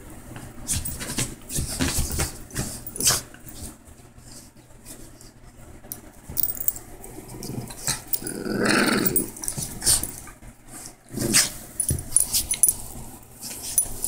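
A small dog pawing and nosing at a blanket on a bed, giving short scratching and rustling sounds, with a dog's growl lasting about a second roughly two-thirds of the way through.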